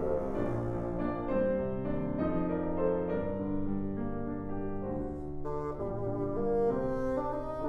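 Bassoon and piano playing classical chamber music: sustained bassoon notes over piano chords, the notes changing every half second or so.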